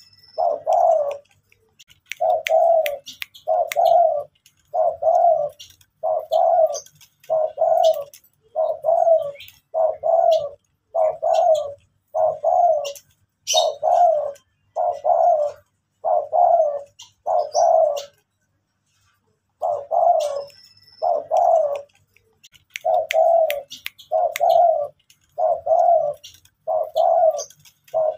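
Spotted dove (derkuku) cooing over and over in a steady series of short coos, about one a second, with one brief pause about two-thirds of the way through. The bird is bowing with its collar puffed, the bow-coo display.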